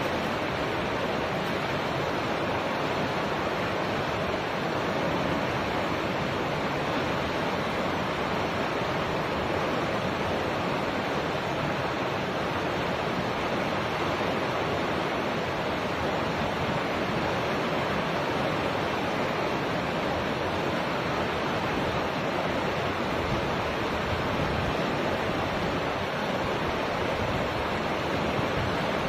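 Fast river rapids rushing steadily: an even, unbroken wash of whitewater over rocks.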